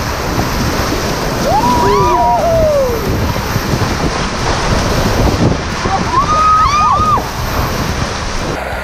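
River water rushing and sloshing around a raft, with wind buffeting the microphone. Twice, at about two seconds in and again near seven seconds, several people whoop and yell together in rising-and-falling voices.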